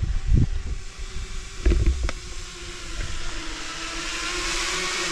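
Wind buffeting the camera microphone in low thumps, about half a second in and again about two seconds in, with a few sharp clicks. After that comes a steady hum and a hiss that grows toward the end.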